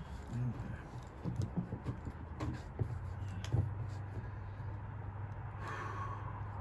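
Scattered light clicks and knocks of handling, with a low steady hum coming in about three and a half seconds in.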